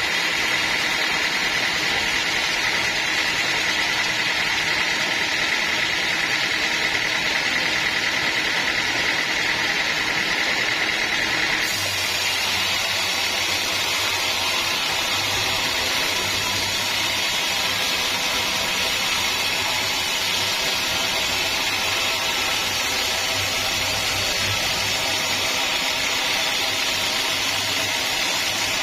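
Sawmill machinery running steadily, a constant mechanical noise with a high whine. About twelve seconds in the sound changes abruptly: the whine drops away and a low hum takes over.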